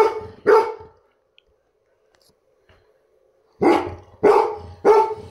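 Golden retriever barking: two barks, a pause of about three seconds, then three more in quick succession. It barks at a ball held up in front of it, a dog demanding its toy.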